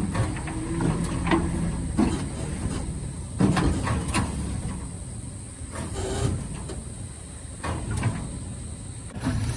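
Tow truck's engine running steadily while the timber cabin's skids creak, scrape and knock irregularly as they slide onto the truck's steel tilt-tray deck.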